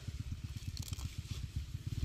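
Water spinach stems and roots crackling and tearing as the plants are pulled up out of the soil, a few short crackles. Underneath runs a louder, low rapid throb, about a dozen beats a second.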